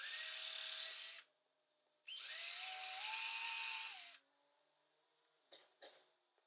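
Power drill with a small bit boring pilot holes into oak, in two short runs, about a second and then about two seconds long; each time the motor whine rises as it spins up. Two faint clicks come near the end.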